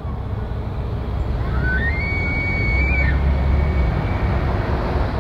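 Bull elk bugling: one high whistle that rises, holds for about a second and drops, the rutting call of a bull elk. Under it is a steady low rumble.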